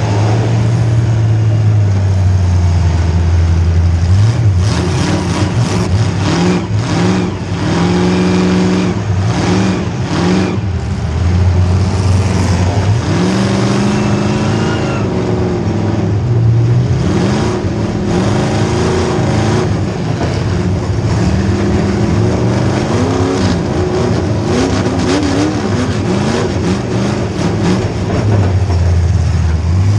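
Demolition derby car's small-block Chevy V8 revving up and down hard, its pitch repeatedly rising and falling. Several knocks and bangs come in a run in the middle.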